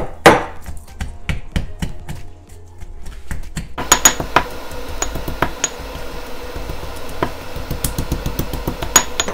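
Pestle pounding onions, garlic, ginger and green chillies in a marble mortar: repeated knocks, a few a second, as the pieces are crushed coarsely.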